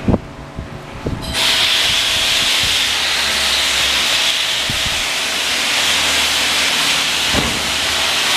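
A loud, steady hiss of rushing air starts abruptly about a second in and holds level, after a couple of light knocks.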